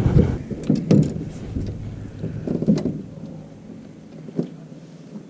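Scattered knocks and clicks of gear being handled in a small metal jon boat over a low rumble that dies down about three seconds in.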